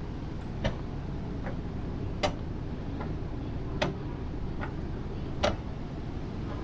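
Footsteps on a hard deck at a walking pace, about one step every 0.8 s with every other step louder, over a steady low rumble.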